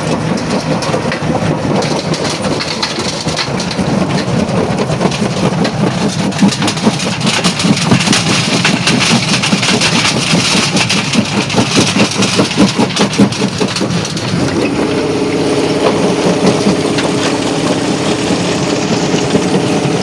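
Quarry jaw crusher running, with a fast run of knocking and rattling as rock is crushed through the middle. A steady hum sets in about two thirds of the way through.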